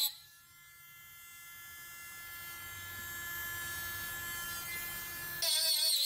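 Dremel Stylo rotary tool with a carving burr running at a steady speed: a high electric whine with a low hum beneath it, growing gradually louder. Background music comes back in near the end.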